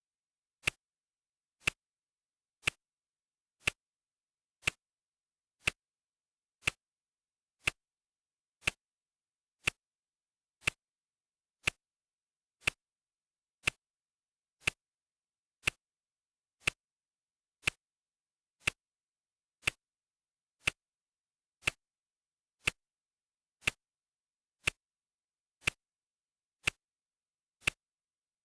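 Clock ticking steadily, one sharp tick each second, with silence between the ticks.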